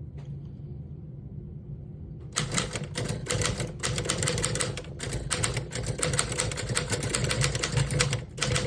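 1931 Royal No. 10 manual typewriter being typed on. After a couple of seconds of quiet, a fast run of key strikes begins, typebars clacking several times a second, with a brief pause near the end.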